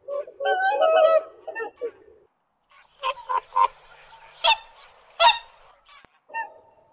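Waterfowl honking: a run of nasal, pitched honks in the first two seconds, then after a short gap harsher, noisier calls, two of them loud and sharp, and a few short honks near the end.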